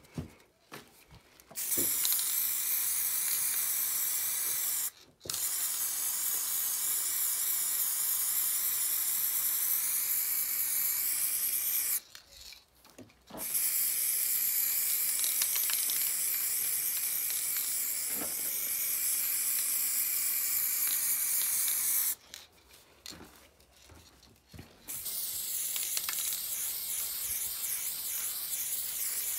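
Aerosol spray-paint can hissing in long continuous bursts as paint is laid on a wall. It starts about two seconds in and stops for short pauses: briefly near five seconds, about twelve seconds in, and for a longer break about twenty-two seconds in.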